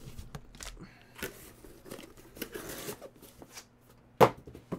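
Cardboard hobby box handled and foil-wrapped trading-card packs rustling as they are taken out and stacked, with scattered light clicks and one sharp knock about four seconds in as something lands on the table.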